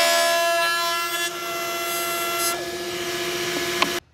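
Makita RP2301FC router mounted in a bench-top router table, running at a steady high-pitched whine while its dovetail bit cuts a wooden board. The cutting noise eases about a second in, and the sound breaks off abruptly near the end.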